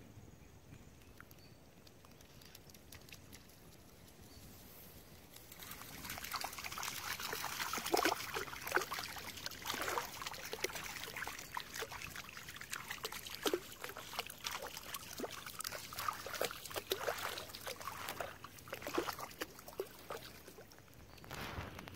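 Quick, irregular splashing of steps through shallow water, as a small dog wades, starting about five seconds in and going on until near the end.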